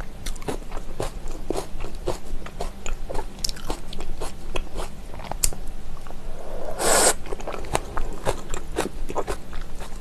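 Close-up eating sounds of spicy raw oyster salad with onions and vegetables: steady wet chewing and crunching with many small mouth clicks. About seven seconds in, a bite taken off the chopsticks gives one louder wet slurp lasting about half a second.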